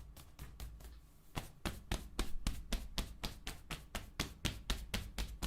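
Rapid, even tapping of hands on a person's own chest and upper back, about six taps a second, growing louder about a second and a half in. This is self-percussion of the lungs while the breath is held.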